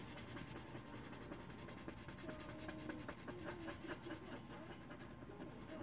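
Sharpie King Size permanent marker scratching on paper in rapid short strokes as it fills in a small solid shape, the strokes thinning out toward the end.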